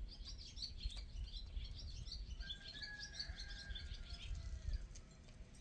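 Barn swallow twittering: a fast, continuous run of short, high chirps.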